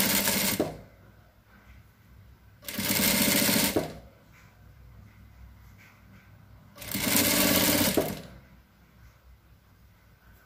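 Industrial sewing machine stitching satin bias binding onto tulle in three short runs of about a second each, stopping between runs while the fabric is guided.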